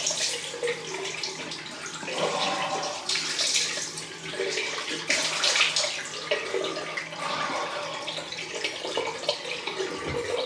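Cold water running from a tap into a bathroom sink while handfuls are splashed onto the face in irregular surges: the cold rinse that ends a wet shave.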